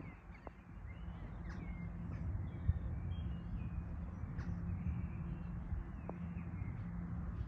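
Birds calling at intervals, short chirps over a steady low rumble.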